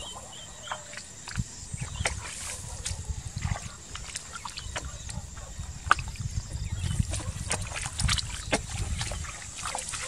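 Hands and feet working in wet mud: squelching and sloshing, with scattered irregular clicks and taps, over a steady low rumble.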